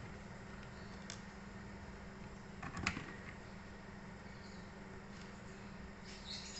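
A steady low hum with a light click about a second in and a sharper cluster of clicks a little before three seconds in.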